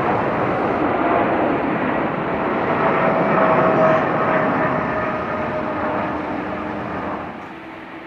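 Jet engines of a departing Boeing 777 at takeoff power just after liftoff: a loud, steady roar with a steady whine in it, dropping off near the end.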